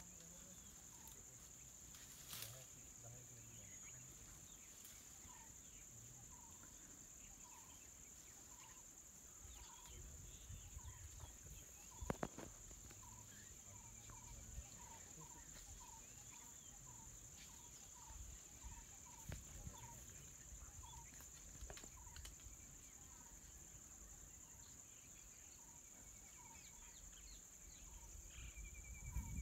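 Faint natural ambience: a steady high insect drone, with a bird repeating a short note about twice a second through the middle, and one sharp click about halfway.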